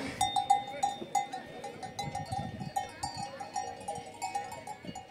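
Livestock bells clanking irregularly, several strikes a second, each with a short metallic ring.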